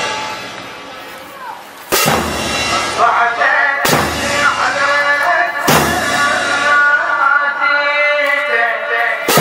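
A man chants a Shia mourning elegy into a microphone, joining in about two seconds in. Under him a loud, heavy beat falls about every two seconds, setting the rhythm for the mourners of the chain-flagellation procession.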